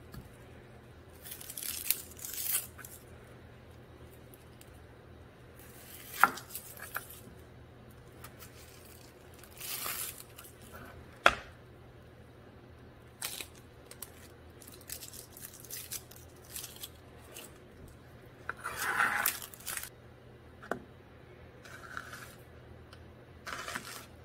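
An onion being peeled and cut by hand: its dry papery skin tearing and crinkling in short rustles, with a few sharp knocks of the knife blade on the cutting board.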